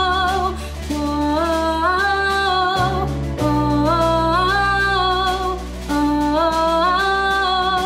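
A young woman singing wordless "whoa" phrases over a pop backing track with steady low bass notes. Each phrase rises into a held note and repeats about every two and a half seconds.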